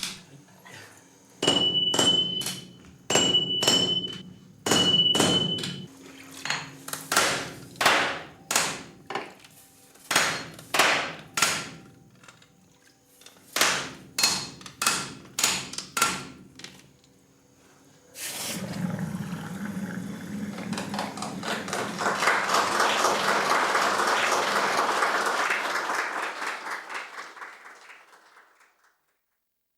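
Large hand hammers striking red-hot tamahagane steel on an anvil, about two dozen blows in uneven groups as different people take turns, the first few ringing with a clear high tone. About halfway through the strikes stop and a dense rushing noise swells and fades over about ten seconds.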